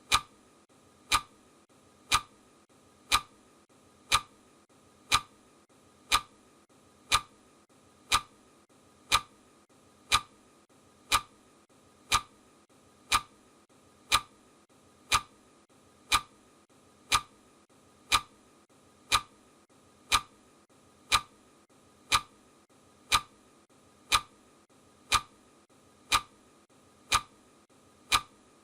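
Clock ticking sound effect: a single sharp tick once every second, steady and even.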